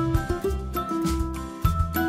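Background music with a steady beat, a repeating bass line and a melody over it.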